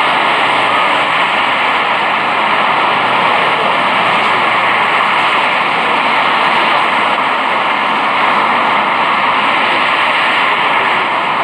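Steady, loud rushing noise of a city street on a phone's microphone, with no single event standing out.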